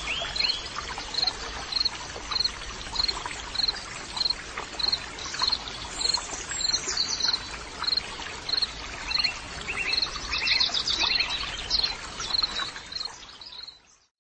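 Forest birds calling: one repeats a short high note roughly every half second, with other falling chirps and trills among it. A steady hiss of insects or running water lies underneath. It all fades out at the end.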